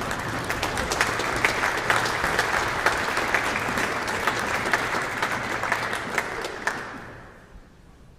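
Audience applauding, many hands clapping at once, dying away about seven seconds in.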